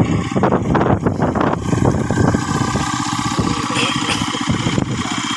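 Small engine of an ISEKI PC4 rice transplanter running. It clatters unevenly for about the first second and a half, then settles into a steady run, with a single knock near the end.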